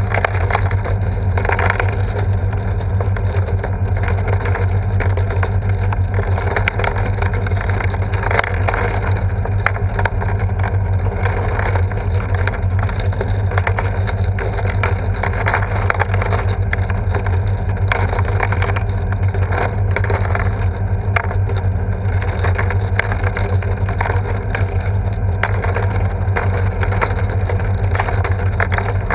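The self-assembly sculpture's machinery running steadily: a deep hum with a rushing, rattling noise over it as the balls are tossed about in the bowl.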